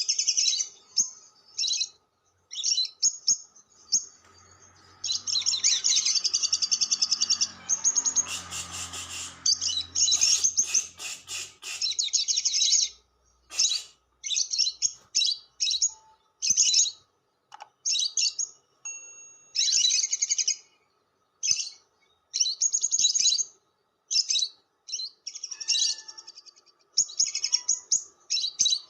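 Lovebird chattering in rapid, shrill trills: the long 'ngekek' chatter. It comes as a string of bursts, mostly short, with one long run of several seconds near the middle.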